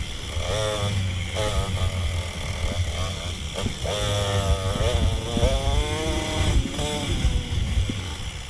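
Dirt bike engine revving up and down again and again as it is ridden along single track, sped up to double speed, which raises its pitch.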